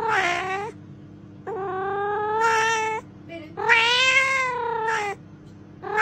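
A cat yowling: long, wavering meows, three in full and a fourth starting near the end. A steady low hum runs underneath.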